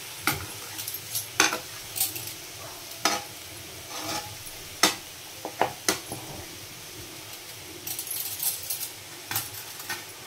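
Steel spatula scraping and knocking against a kadai as grated carrot is stirred, in irregular strokes about once a second with a quicker run near the end. Under it a faint steady sizzle of the carrot dry-frying uncovered in oil once it has gone tender.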